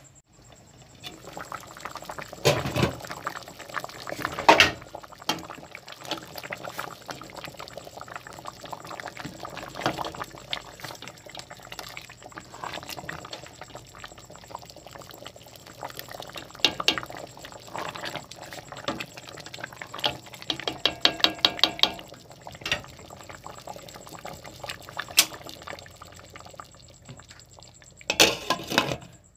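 A pot of tapioca pearls boiling, the water bubbling steadily with scattered clinks of the pot and its glass lid. There is a quick run of rattling ticks a little past the two-thirds mark, and a louder clatter near the end as the glass lid is lifted.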